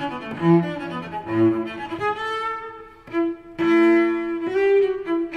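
Classical background music: a bowed-string melody of held notes, fading briefly about three seconds in before a loud sustained note.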